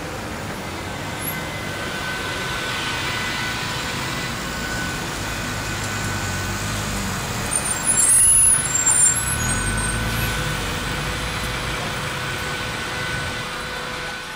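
H0-scale model trams running on a layout: a steady running noise with faint steady whining tones. About eight seconds in there is a brief, louder burst of high squeals and clatter, followed by a low rumble.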